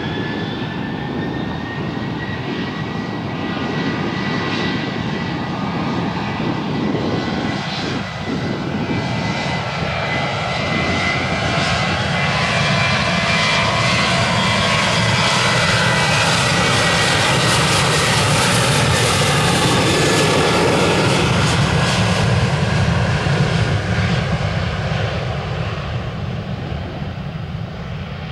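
Boeing 737-700's twin CFM56-7B turbofan engines spooling up to takeoff thrust, with a rising whine at the start. The engine noise then grows louder as the jet accelerates down the runway past the listener and fades near the end as it moves away.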